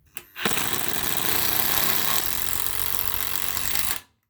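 Makita 12-volt cordless impact driver hammering as it drives a screw under load in a torque test. It runs with a steady rapid rattle for about three and a half seconds, then cuts off suddenly.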